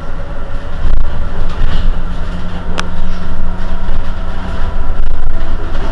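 Irizar i2e battery-electric city bus standing at a stop: a steady hum over a low rumble, with one sharp click about three seconds in.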